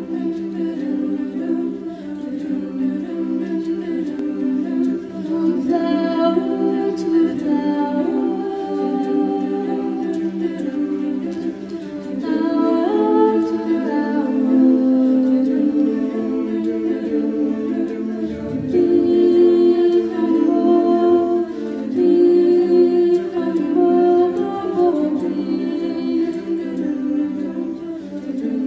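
Choir singing a cappella: several voice parts in sustained harmony, with no instruments and a moving upper line over held lower notes. It grows louder about twelve seconds in.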